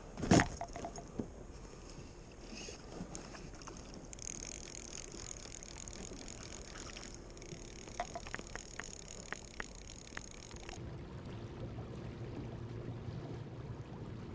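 Fly reel clicking in short runs of ticks as line is wound in, over river water lapping at an icy bank. A single sharp knock, the loudest sound, comes just after the start.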